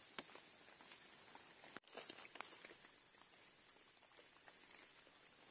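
Steady high-pitched drone of forest insects, quiet overall, with faint ticks and scrapes of a knife digging in soil and leaf litter; the sound cuts out completely for a moment a little under two seconds in.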